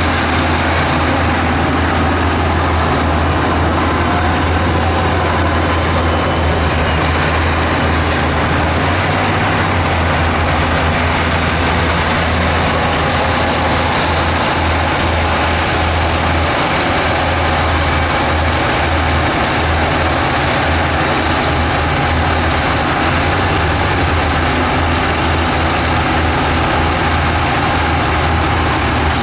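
Diesel engine of heavy earthmoving equipment running steadily with a deep low hum, the engine note changing a little about nine seconds in and again around sixteen seconds.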